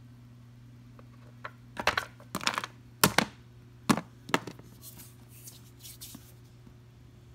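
A handful of sharp clicks and knocks, about five in two and a half seconds, then softer rustling near the end. This is handling noise from small hard objects being moved around. A steady low electrical hum runs underneath.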